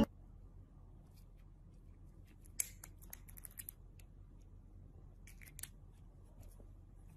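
Small metal nail clippers clicking as they are worked at a cat's claws. Faint, with a quick run of clicks about two and a half seconds in and a few more about five and a half seconds in.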